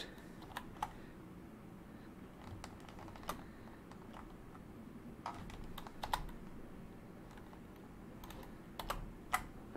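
Single keypresses on a computer keyboard, about eight separate clicks spread out a second or more apart, as keyboard shortcuts are pressed.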